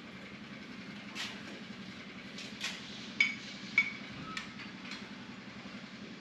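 Hand tool being handled against a wooden 2x4 workbench frame: a few light knocks, then two sharp metallic clinks with a short ring about three and four seconds in, over a steady low hum.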